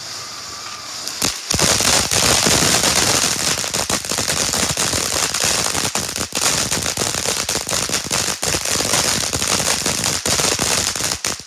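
Ground fountain firework hissing as it sprays sparks. About a second and a half in, it gives way to a loud, dense crackle of rapid pops as crackling sparks fly out. The crackle cuts off suddenly near the end.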